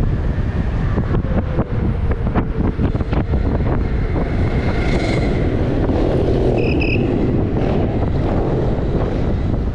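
Wind buffeting the microphone in a steady, loud rumble while riding an electric unicycle at speed. A short high-pitched electronic beep sounds about seven seconds in.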